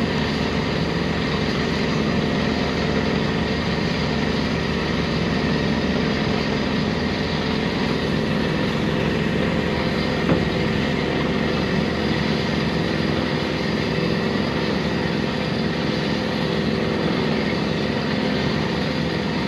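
A heavy engine running steadily, an even low drone with a short click about halfway through.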